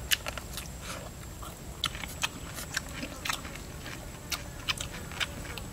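Close-up eating sounds: a man biting and chewing grilled pork ribs, with irregular crisp crunches and wet smacks, about two or three a second.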